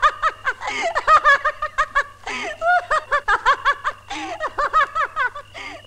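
High-pitched female laughter: rapid runs of ha-ha pulses, about five a second, broken by brief gasps for breath about two and four seconds in.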